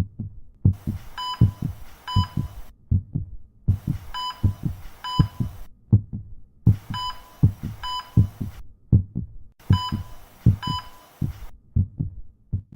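Low, dull thuds in pairs, in a heartbeat-like rhythm. Over them, four stretches of hiss about two seconds long come and go, each with two short high beeps.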